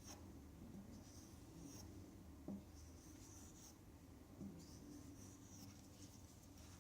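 Pocket knife blade being drawn across a compound-loaded leather strop: faint, scratchy swishing strokes about once a second, with a couple of light taps between them.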